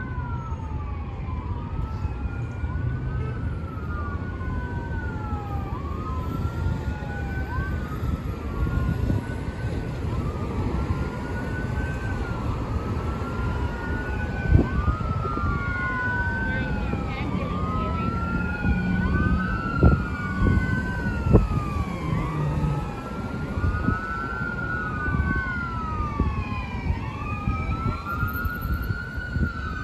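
Two or more emergency-vehicle sirens wailing together, each rising and falling about every two seconds and overlapping out of step, over a steady rumble of road traffic. A few short knocks stand out near the middle.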